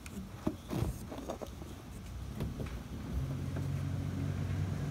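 A few light knocks and taps, then about three seconds in a steady low engine hum starts up and keeps going.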